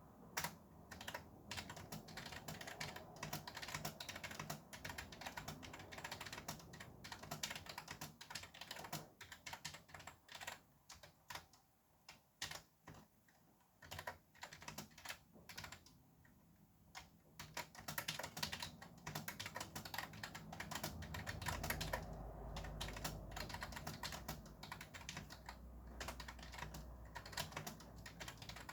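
Fast typing on a computer keyboard: rapid runs of key clicks, thinning out to scattered keystrokes with short pauses midway, then picking up again. A low rumble joins in during the second half.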